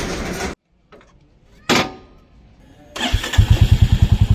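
Royal Enfield 350's single-cylinder engine starting about three seconds in and settling into a steady, evenly pulsing idle thump. Before it, a brief hiss cuts off and there is a single short sharp sound.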